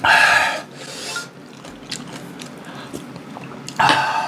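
Two loud, breathy open-mouthed huffs, one at the start and a shorter one near the end: a mouth burning from very spicy kimchi and ramyeon. Faint mouth and spoon sounds fill the gap between them.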